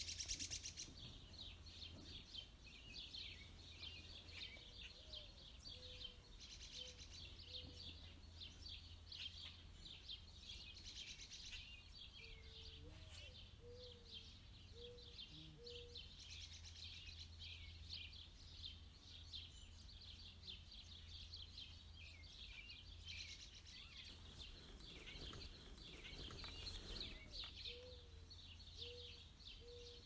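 Faint, constant high-pitched bird chirping, with a few short low notes in small groups and a steady low hum underneath.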